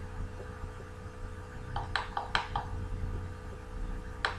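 Light clicks at a computer: a quick run of about five about two seconds in, and a single one near the end, over a steady low hum.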